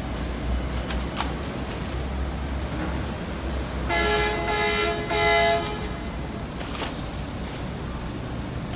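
A ferry's horn sounding two blasts about four seconds in, the second shorter, over a steady low rumble.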